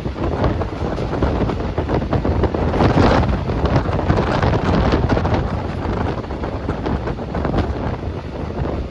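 Wind buffeting the microphone over a steady low rumble, the sound of riding in or beside a moving train.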